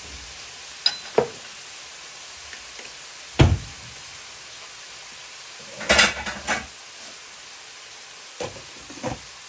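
Utensil clanking and scraping against a pan while stir-frying, over a steady sizzle. Several sharp knocks: the loudest about three and a half seconds in, and a quick cluster around six seconds.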